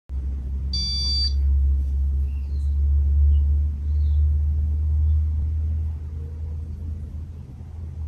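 Ceiling fan running on badly worn motor bearings, a loud low rumble that eases somewhat about six seconds in. A brief high-pitched tone about a second in.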